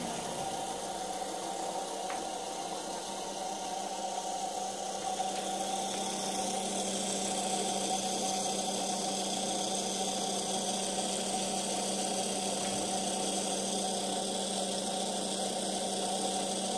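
Small brushed DC motor running steadily, driving a toy-car gear train through a rubber-band belt that spins magnets past a coil: a steady whirring hum.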